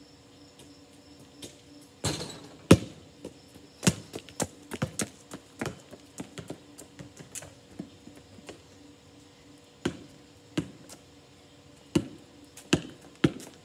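Basketball bouncing on pavement: an uneven string of sharp thuds, a few much louder than the rest, over a faint steady hum.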